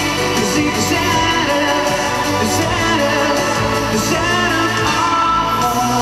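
Pop-rock song with a male lead vocal singing over the band, electric guitar among the instruments.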